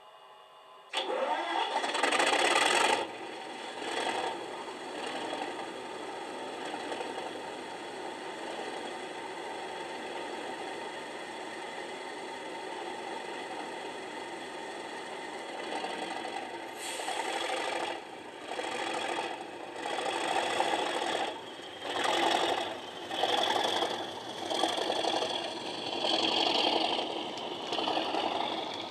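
Factory-fitted DCC sound decoder in an Accurascale Class 37 model locomotive playing its English Electric diesel engine through the model's small speaker: the engine starts up about a second in, settles to a steady idle, then in the second half the sound rises and falls about once a second as the locomotive pulls away with its train.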